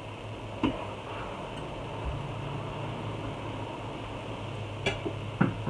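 Table noises of people eating: a sharp click of a utensil or dish about half a second in, and a few more near the end, over a steady low hum in the room.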